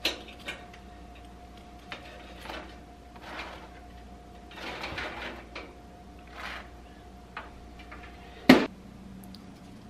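A fork scraping and clinking against the wire rack of a countertop toaster oven as toast is lifted out onto a plate: a few soft, short scrapes. Near the end the toaster oven's glass door snaps shut with one sharp clack, the loudest sound, over a faint steady hum.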